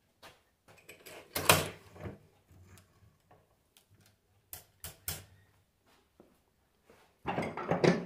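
Alternator parts and tools being handled on a workbench: irregular metal clicks and knocks, a louder clatter about a second and a half in, a few sharp clicks later, and a longer rattling clatter near the end.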